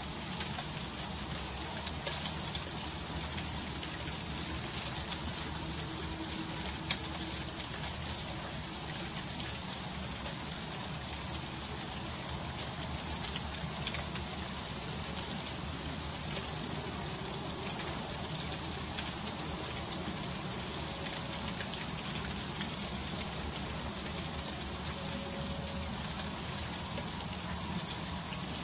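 Freezing rain falling steadily and pattering on surfaces: an even hiss scattered with many small sharp ticks of drops and ice striking.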